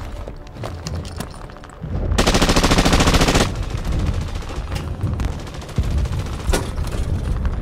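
Sound-designed battle gunfire: scattered sharp shots over a low rumble, with one loud burst of rapid automatic fire about two seconds in that lasts just over a second.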